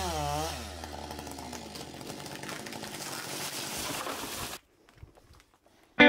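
Chainsaw coming off the throttle, its pitch falling over the first half-second. A few seconds of rough, hissing noise follow, and they stop abruptly about four and a half seconds in.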